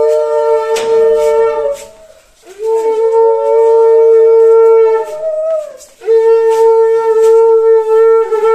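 Conch shell (shankha) blown in long, steady, horn-like blasts, the ritual call of a Bengali wedding. One blast ends about two seconds in. The next swells up in pitch at its start and sags at its end. A third begins about six seconds in.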